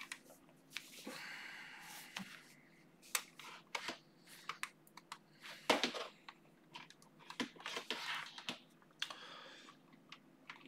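Faint handling noise: scattered clicks and taps of hands on a small plastic-and-metal mini PC and a barrel power plug, with a sharper click a little before the middle, and soft rustling of adapter cables in a plastic box.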